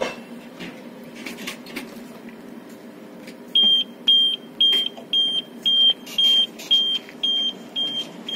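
Single-tone warning beeper of the heavy-haul truck moving the tram's low-loader trailer, beeping about twice a second from a few seconds in, over the steady hum of the truck's engine.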